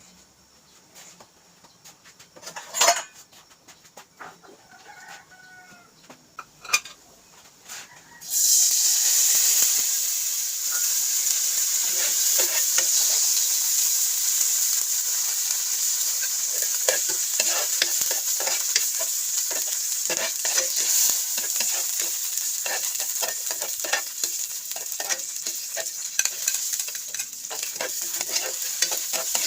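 A few sharp knocks with chickens calling faintly, then about eight seconds in food hits hot oil and a loud, steady sizzle starts, with the clicking and scraping of a spatula stirring it in the pan.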